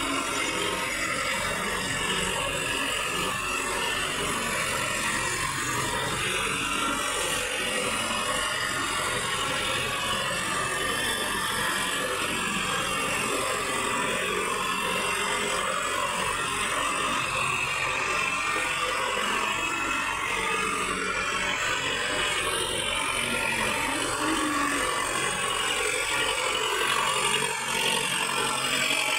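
Sonalika tractor's diesel engine running steadily under load, while the rear-mounted rotavator churns through the waterlogged mud with a continuous mechanical clatter.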